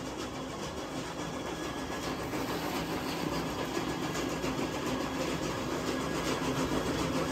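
An engine running steadily with a low hum, slowly getting louder.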